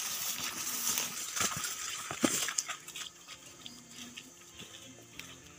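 Footsteps and the rustle of grass and undergrowth as people walk along a forest path, louder in the first three seconds and then softer. Insects keep up a steady high-pitched buzz behind.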